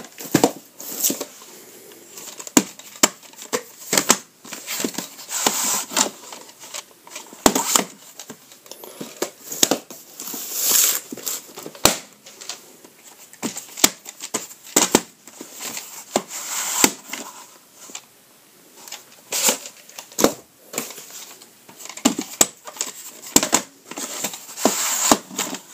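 VHS tapes and their cases being handled: irregular sharp plastic clicks and knocks mixed with short rustles.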